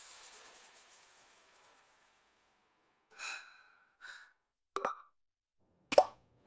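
The last chord of a country song ringing out and fading within the first second, then a gap of near silence broken by four short, soft breath-like sounds. The next piece of music begins right at the end.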